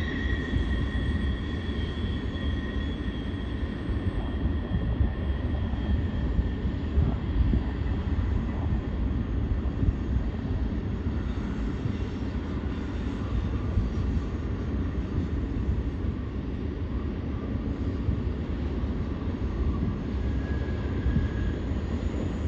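Long freight train of covered hopper cars rolling along the canyon track: a steady low rumble. A high-pitched wheel squeal fades away over the first few seconds and a faint squeal comes back near the end.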